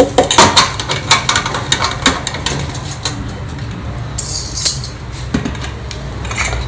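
Stainless steel idli plates clattering and clinking against the steamer pot and each other as the stack is lifted out by its central rod, with a quick run of metal knocks at first, then a few scattered ones. A brief hiss comes a little past halfway, over a steady low hum.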